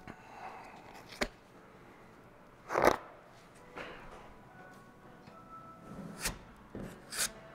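Plastic spreader scraping body filler off a mixing board and smearing it onto a fiberglass truck hood: a few short scrapes, the loudest about three seconds in.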